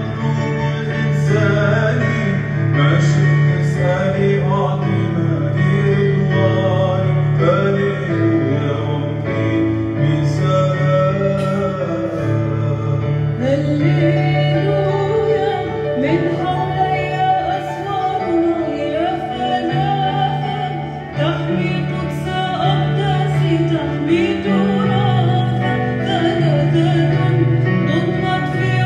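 Music: a voice sings a melody with vibrato over held low accompanying notes.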